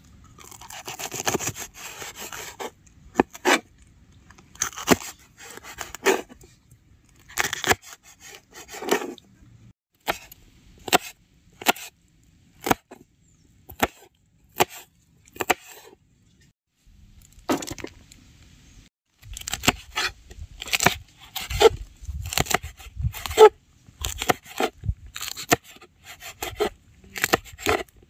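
Kitchen knife chopping green bell peppers on a wooden cutting board: a string of sharp knocks as the blade hits the board. The first few seconds also hold longer scraping, crunching cuts, and the knocks come quicker in the second half.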